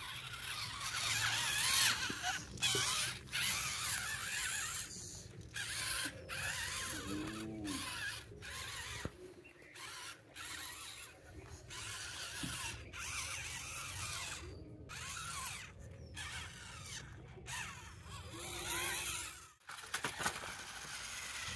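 Toy RC rock crawler truck's small electric motor and plastic gearbox whirring as it drives through grass, in runs of a second or two broken by short pauses as the throttle is let off.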